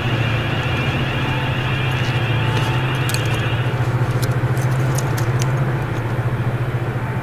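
Diesel locomotives of a freight train working out of sight: a steady, loud low drone with a high whine on top that cuts off about four seconds in. A few light metallic clicks sound in the middle.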